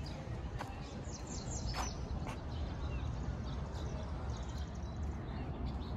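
Songbirds chirping in short, high calls over a steady low outdoor rumble, with a few sharp footstep-like clicks.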